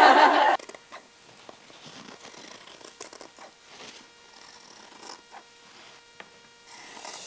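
A burst of voices cuts off about half a second in, then dressmaking shears cut through fabric on a table: a run of faint, irregularly spaced snips as the blades close through the cloth.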